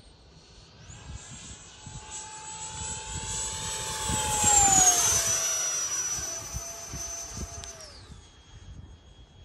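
Freewing L-39 model jet's electric ducted fan (Wemotec fan, HET motor, 8S) whining high. It throttles up about a second in, then rushes past on a high-speed low pass, loudest at mid-pass, its pitch dropping as it goes by. Near the end it throttles back and fades away.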